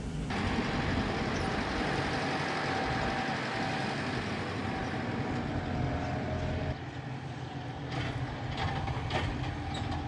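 Farm machinery running steadily, with a faint whine that fades about two-thirds of the way through and leaves a lower running noise with a few light knocks.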